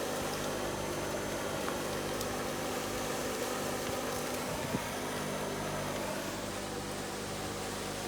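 A machine running with a steady hum, with one faint click about halfway through.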